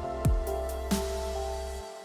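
Electronic music with held synth notes and deep kick drums that drop in pitch, the bass stopping near the end as the music fades out.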